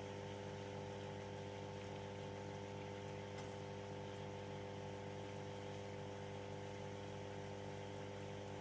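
A small electric motor running at a steady speed, giving an even, unchanging hum.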